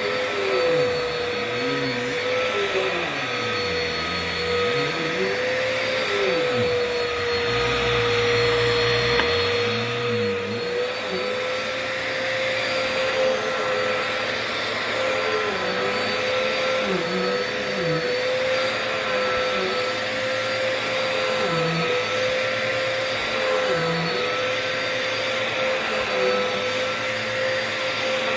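Dirt Devil Multi-Surface Rewind upright vacuum cleaner running: a steady motor whine, with lower sounds dipping and rising in pitch every couple of seconds.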